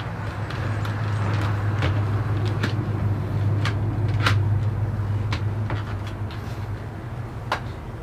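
Clear plastic packaging rustling and sharp clicks of hard plastic vacuum parts being handled, over a low hum that swells and then fades over several seconds.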